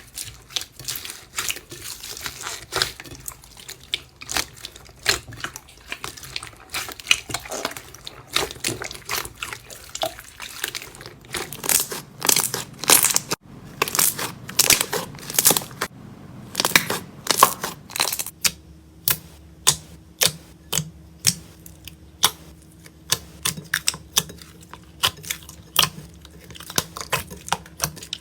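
Slime being squeezed and poked by hand: a dense run of sticky crackles, pops and clicks. Near the end the pops turn sharper and more evenly spaced.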